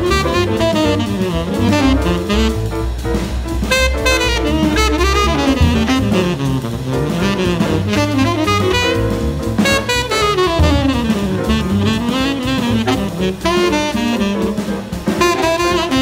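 Tenor saxophone soloing in fast, flowing runs that swoop up and down over a small jazz band, with double bass stepping underneath, piano, and drums with cymbals.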